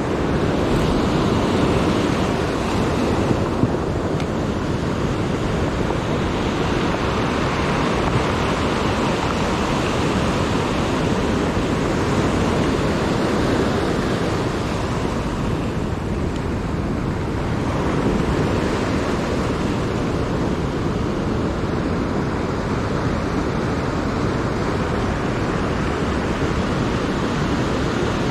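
Surf breaking on a sandy beach: a steady wash of waves that swells and eases slowly.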